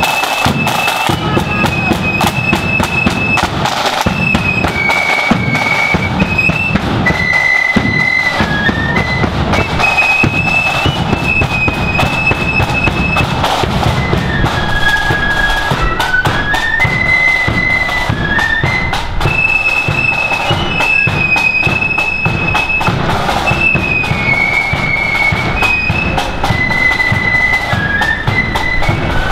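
Marching flute band playing: massed flutes carry a high, stepping melody over rapid side-drum rolls and a bass drum beat.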